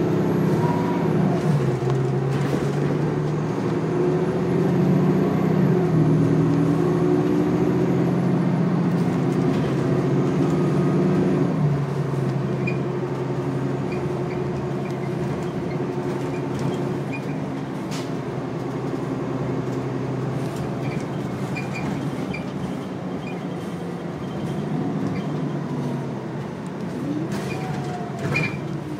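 Interior sound of a 2017 Nova Bus LFS diesel city bus under way: its Cummins L9 engine and Allison six-speed automatic running steadily, with road noise. It is louder for the first twelve seconds or so, then quieter as the bus eases off.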